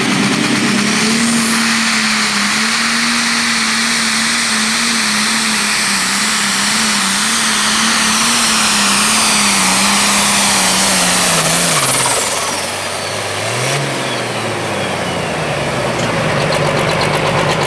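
Pro Stock pulling tractor's turbocharged diesel engine at full power, pulling the sled with a steady high engine note. About twelve seconds in, the engine lets off as the pull ends: a high whine falls away, the pitch blips up and down once, and the engine settles into a lower steady run.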